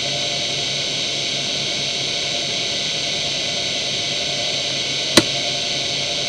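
Seagate ST9145AG 2.5-inch IDE hard drive idling, its spindle running steadily at 3449 rpm with a constant hum and hiss. A single sharp click comes about five seconds in.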